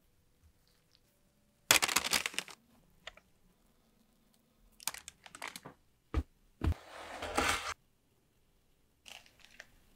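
A string of short crackly, crunching and crinkling food-handling sounds separated by near silence, with two sharp knocks about six seconds in. The longest crunch, near the end, is the crusty shell of a baked chicken pie being cut and torn open.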